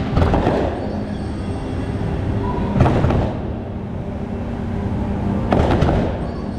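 Aerial fireworks shells bursting: sharp bangs near the start, about three seconds in, and a quick cluster near six seconds, with a steady low rumble between them and music underneath.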